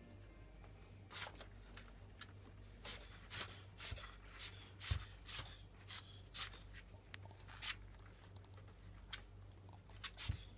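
Ferret sneezing over and over: a run of about fifteen short, sharp sneezes, coming roughly every half second through the middle and more spaced out towards the end.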